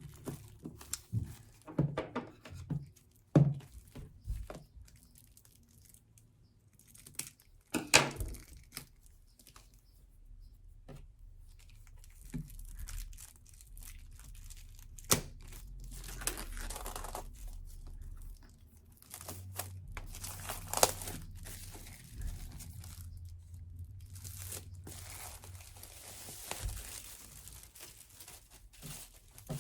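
Plastic shrink-wrap being torn and crinkled as a new CD album is unwrapped, with scattered taps and clicks of the album being handled in the first half and longer stretches of crackling rustle later.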